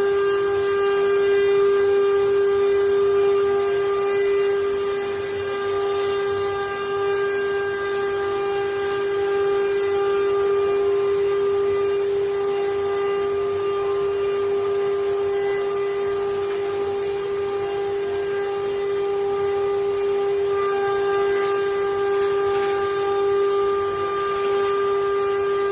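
CNC wood-carving machine's router spindle running with a steady high whine and a hiss of cutting.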